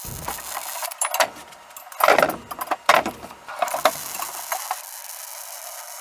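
Irregular clattering knocks, the loudest about two and three seconds in, followed near the end by the steady crackling hiss of a wire-feed welder laying a bead on steel tubing.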